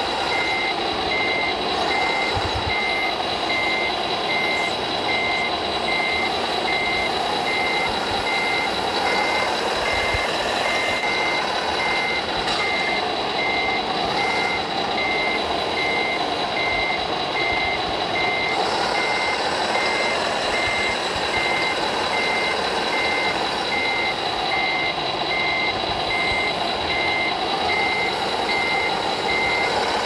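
Steady, evenly spaced electronic reversing beeps from an RC model truck's sound module. Under them, the whine of a small motor rises and falls as the model crane works.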